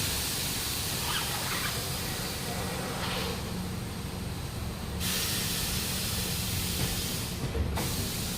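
Compressed air hissing in bursts at a tyre, cutting back at about three seconds in and starting again at about five seconds, over a steady low hum.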